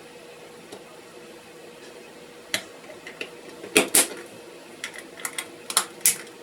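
A handheld nitrate tester's casing being fitted back together by hand: a run of sharp clicks and taps, starting about two and a half seconds in, with the loudest a double click around four seconds.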